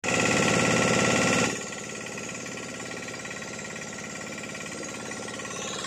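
Motorboat engine running with a rapid, steady chug. It is loud for the first second and a half, then drops to a lower, even level.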